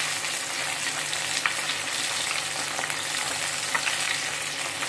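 Two shorputi fish frying in hot mustard oil in a wok: a steady sizzle with scattered small pops and crackles.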